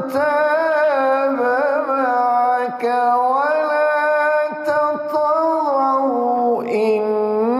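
Solo male Quran recitation in the melodic tajwid style into a handheld microphone: long held, ornamented notes in one voice, briefly broken a few times for breath or a new syllable.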